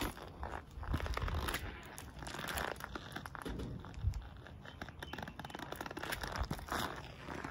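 White Nike Air Force 1 sneakers grinding and twisting on mashed banana on concrete: irregular squishing and gritty scraping from the rubber soles, coming in several bouts.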